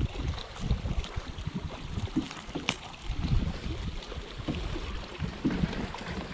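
Wind buffeting the microphone on an open fishing boat: a gusty low rumble, with one sharp click about two and a half seconds in.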